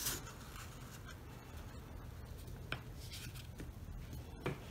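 A sheet of paper being folded and pressed flat by hand: a brief brush at the start, then faint rustling, with two short soft clicks, the second near the end.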